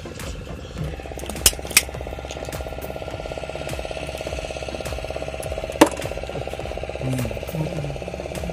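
A motorboat engine running steadily, starting up about a second in, with three sharp clicks over it.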